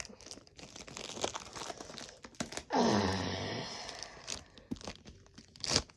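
Packaging crinkling and tearing as a mystery figure is unwrapped, with rustles and clicks throughout. About three seconds in, a short voice sound falls in pitch, like a sigh or groan.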